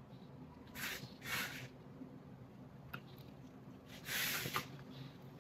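A few short, soft rustles, like packaged hair extensions being handled, with a faint click in the middle.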